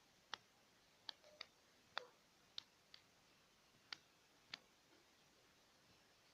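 About eight sharp, short clicks at uneven intervals over an otherwise near-silent room.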